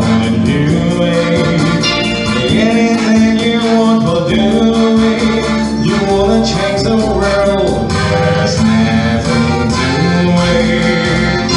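A man singing into a microphone to electronic keyboard accompaniment with a steady beat.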